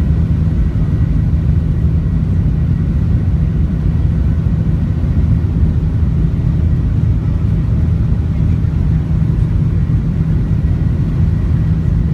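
Airliner's jet engines and takeoff roll heard inside the passenger cabin: a loud, steady low rumble.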